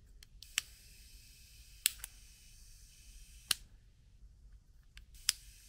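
Sharp clicks from the igniter of a Weller Portasol P2C butane soldering iron, five in all, two of them close together about two seconds in.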